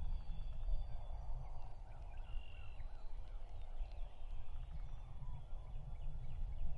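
Wild turkey toms gobbling in the distance, with songbirds whistling high above them and a steady low rumble underneath.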